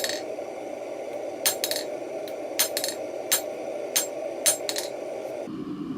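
Blacksmith's hammer striking hot round bar stock on an anvil while drawing out a taper: about ten irregular ringing blows, some in quick pairs. A steady rushing noise runs underneath and changes abruptly near the end.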